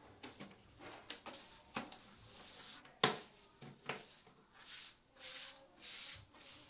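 Gloved hands pressing the clip-on cover half of a two-part PVC moulding onto its base rail: a series of short plastic rubbing and scraping noises, with a sharp snap about three seconds in as the strip clips home.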